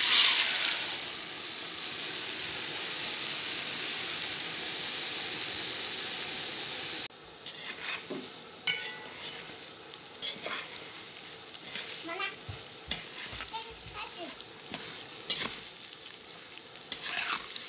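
Broken vermicelli hits hot oil in a pot with a loud burst of sizzling, which settles into a steady sizzle. After a sudden cut about seven seconds in, a spatula scrapes and turns the noodles against the pot in irregular strokes over a fainter fry.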